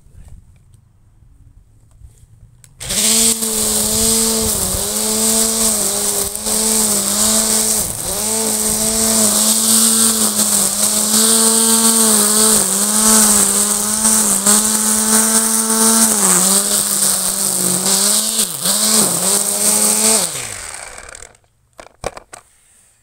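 Patriot ELT 1000 Garden electric string trimmer switched on about three seconds in and running at full speed through long grass. Its motor whine dips briefly again and again over the hiss of the cutting line. Near the end it shuts off and winds down with a falling pitch.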